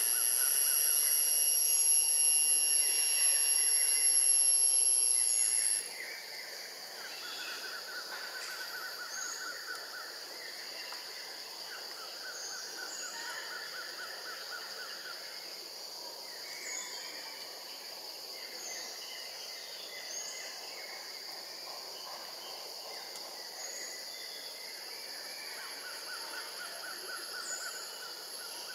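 Forest ambience. A loud, steady, high-pitched insect whine cuts off abruptly about six seconds in. After that a quieter steady insect hum remains, with repeated short rapid trills and scattered bird chirps.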